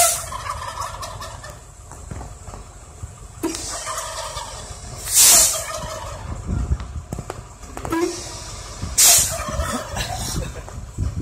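Wild turkey toms gobbling, each burst of gobbles coming right after a sharp hiss of air brakes; there are three hisses, at the start, about five seconds in and about nine seconds in, and they are the loudest sounds.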